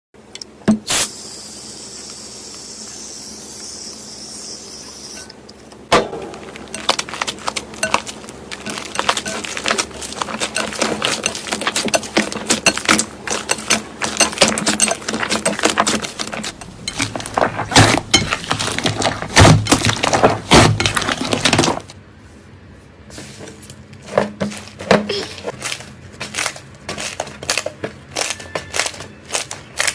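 Slime being squeezed and pressed by hand, giving dense crackling and popping clicks. After a quieter start, the crackling thickens about six seconds in, then thins to scattered clicks for the last several seconds.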